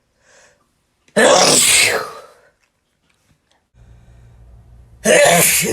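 A person sneezing twice, loud: a faint intake of breath just after the start, one sneeze about a second in and another near the end. A low steady hum comes in between the two sneezes.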